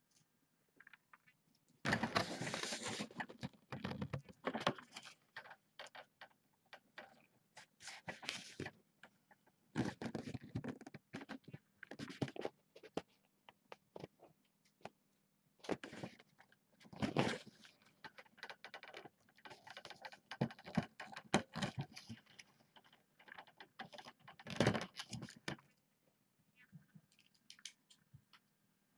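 Close handling noises: irregular bursts of rustling and scraping with many small clicks, from hands working a small pointed tool and a thin blue plastic strip.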